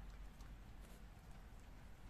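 Near silence: a low, steady outdoor hush with one or two faint, sharp ticks.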